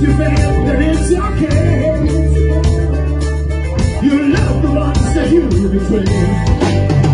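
Live rock band playing, with electric guitars, bass and drums and a lead vocal singing over them.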